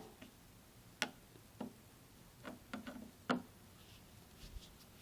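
Screwdriver tightening the mounting screws of a wall light switch into its electrical box: a handful of irregular, sharp metallic clicks and taps.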